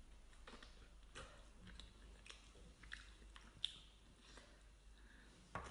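A person chewing a mouthful of food quietly, with small irregular wet clicks and smacks of the mouth.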